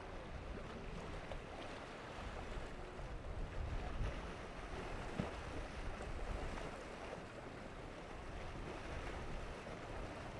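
Wind buffeting the microphone over rough, choppy sea, with a small boat's outboard motor running underneath as the hull slaps through the waves.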